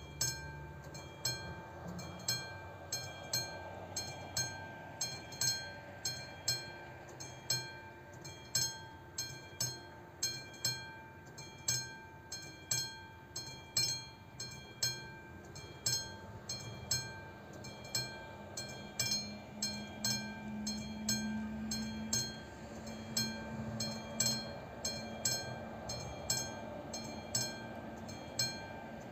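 AŽD 71 railway level-crossing warning bell ringing with evenly spaced, repeated dings. A low steady hum from an approaching train builds in from about halfway through.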